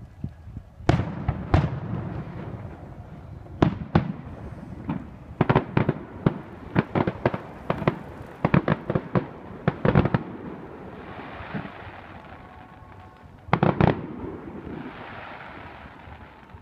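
Fireworks going off: a rapid series of sharp bangs, densest from about five to ten seconds in and again in a short cluster near the end, with a softer hiss between the volleys.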